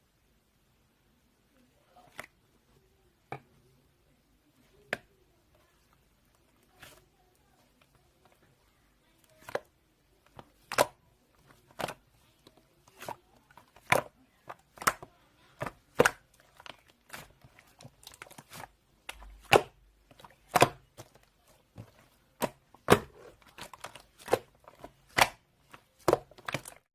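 A series of sharp clicks or taps, a few seconds apart at first and then coming faster and louder from about ten seconds in.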